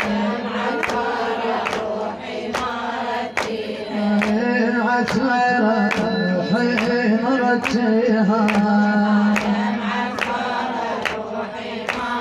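Female voices singing an Iraqi Shia lament (latmiyya) in long, drawn-out notes, over a sharp, steady beat about every 0.8 seconds.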